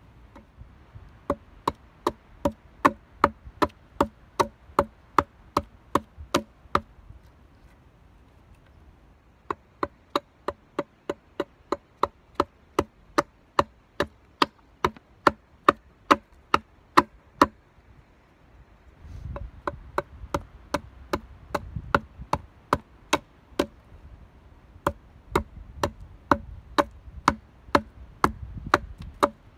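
Wood struck over and over with a hand tool, about two blows a second, each a sharp knock with a short hollow ring. The blows come in three runs with brief pauses between them.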